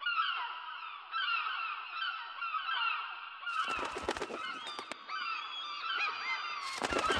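A flock of gulls calling: many overlapping short, falling cries. From about halfway, a run of sharp clicks and knocks joins in.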